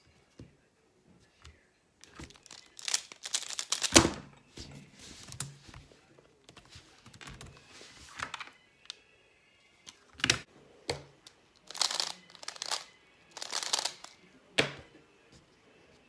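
Handling noise at a table: rustling of a cloth cover and knocks as a plastic Pyraminx puzzle is moved and set down, with a loud thump about four seconds in and a few sharper knocks later.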